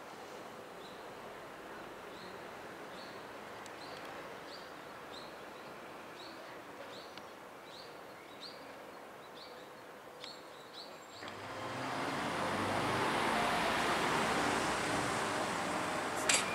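Outdoor ambience: a small bird chirps over and over, short high calls about once a second, over a low background hiss. About eleven seconds in the sound jumps to louder, steady road-traffic noise with a low rumble, and a sharp high click comes near the end.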